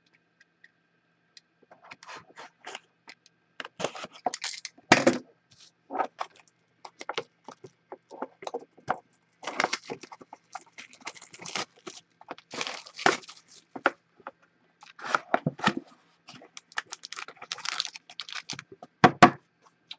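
A sealed cardboard trading-card box being cut open and handled: a run of sharp clicks, scrapes and crinkles of cardboard and wrapping, with louder snaps about five seconds in and again near the end.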